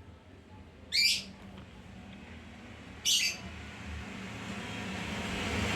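Two short, high bird chirps about two seconds apart, over a low steady hum, with a rush of noise growing louder toward the end.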